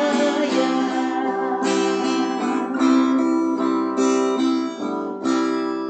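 Instrumental close of a song: acoustic guitar strumming chords, with a last chord near the end left ringing and fading.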